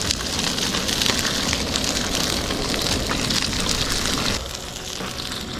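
Aerosol butter spray hissing onto a trout frying in a hot pan, the pan sizzling under it. The spray stops about four seconds in, leaving a quieter sizzle.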